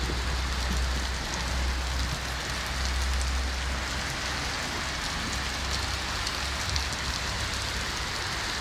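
Steady rain falling on wet pavement and cars, an even hiss with a low steady rumble underneath.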